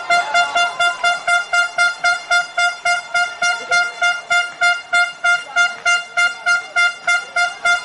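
A horn sounding in short, rapid toots, about three a second, all on one unchanging high note, over a faint murmur of the stadium crowd.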